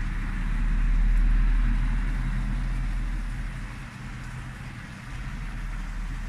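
Outdoor background noise: a deep rumble that swells about a second in and then fades over the next few seconds, over a steady hiss.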